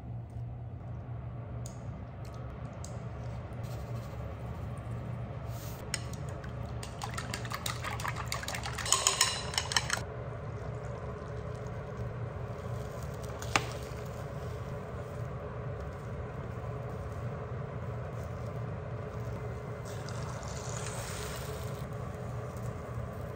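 Eggs beaten with chopsticks in a glass bowl, a quick run of clicks against the glass, followed by a single sharp clack. Near the end a soft sizzle as beaten egg cooks in a rectangular tamagoyaki pan, over a steady low hum.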